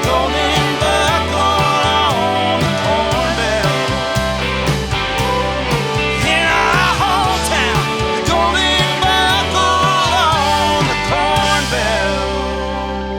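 Rock band playing live: drums and bass under a wavering lead melody, ending on a held chord that starts to ring out and fade near the end.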